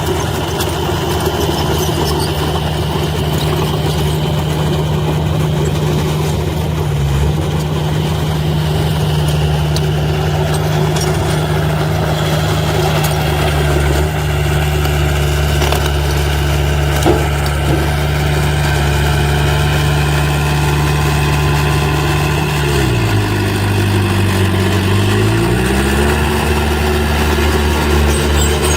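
Heavy earthmoving machine's engine running steadily at a constant speed. About three-quarters of the way through, its pitch drops for a couple of seconds and then comes back up.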